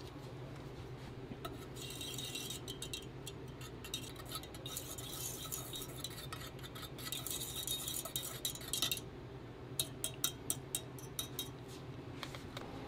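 A coil whisk frothing milk in a stainless steel pitcher, with a hissing, bubbling sound. It stops, and a quick series of sharp metal clinks against the pitcher follows.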